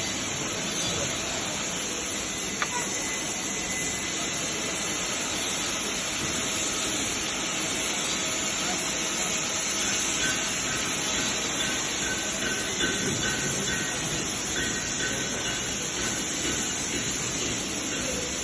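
TIG (GTAW) welding arc on a steel pipe, running as a steady even hiss. Faint thin tones come and go partway through.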